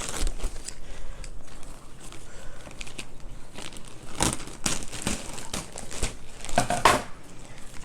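Packing material rustling and crinkling as a mail-order plant shipment is unwrapped by hand, with irregular crackles and a couple of louder crinkles about four seconds in and near the end.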